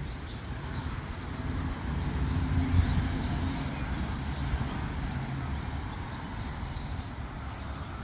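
A car passing, a low rumble that swells and fades about halfway through, with faint bird chirps.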